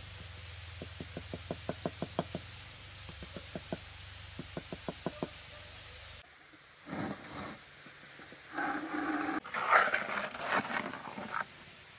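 Terracotta tile being tapped down into wet mortar with the trowel's handle: two runs of quick light knocks, several a second, in the first five seconds. Then a gloved hand scraping mortar in a plastic bucket, in irregular rustling bursts.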